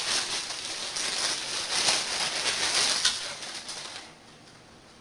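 Plastic wrapping crinkling and rustling in the hands as a power adapter is pulled out of its bag, dying away after about four seconds.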